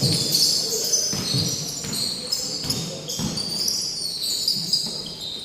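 Basketball bouncing on a gym floor, a low thump roughly once a second, with many short high-pitched squeaks over it.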